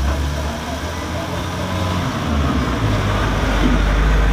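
A motor vehicle's engine rumbling, its low drone shifting in pitch about three seconds in and growing louder near the end.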